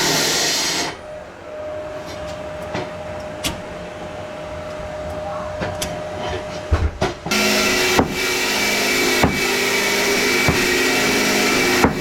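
A power tool used in breaking up a basement concrete floor runs and stops about a second in. It starts again about seven seconds in and keeps running, with sharp knocks about every second and a quarter.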